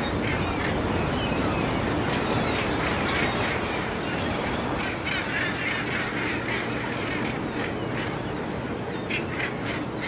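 A large flock of gulls calling, many short overlapping cries at once, over a steady background rush.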